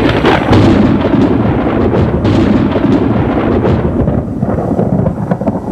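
A loud, continuous rumbling noise with a few sharp cracks in the first half, easing off a little after about four seconds.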